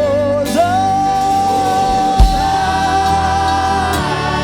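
Gospel worship music: a singer holds one long note over keyboard and bass accompaniment, with a single deep bass hit about halfway through.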